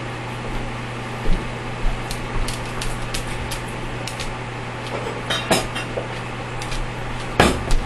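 Light clicks and knocks of a Breville Smart Grinder's parts being handled and taken apart to clean it out after it clogged, with one louder knock near the end, over a steady low hum.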